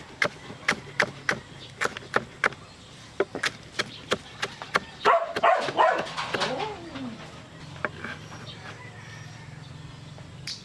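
Knife chopping on a cutting board, sharp strokes about three a second for the first four seconds. About five seconds in, a loud animal call cuts in that falls in pitch.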